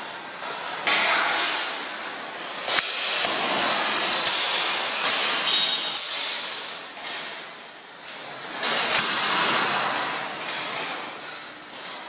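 Steel longswords clashing with each other and striking plate armour: a string of irregular metallic clanks, each ringing out and echoing in a large hall.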